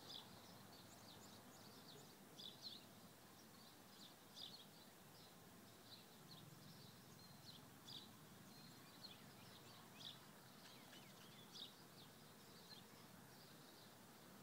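Faint outdoor background noise with short, high bird chirps every second or so.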